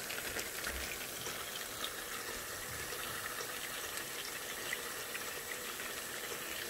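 Tap water running steadily into a sink, over frozen cow colostrum to thaw it.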